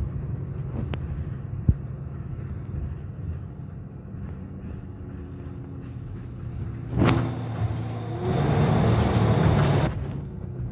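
Nova LFS city bus's Cummins diesel engine running with a steady low rumble, heard from inside the passenger cabin. About seven seconds in there is a sharp clatter. After it comes a louder, hissing stretch of about two seconds.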